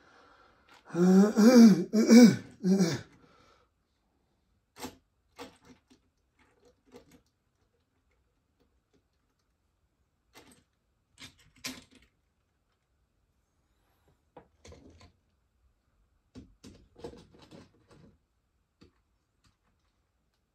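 A person's wordless vocal sound, rising and falling in pitch, about a second in, followed by scattered light clicks and knocks of things being handled.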